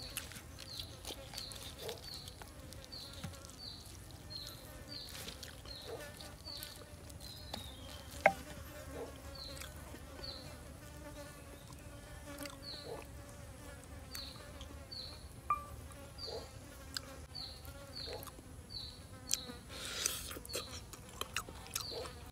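Forest insects: a short, high chirp repeated about every two-thirds of a second over a faint steady buzz. A few sharp clicks are scattered through it, the loudest about eight seconds in.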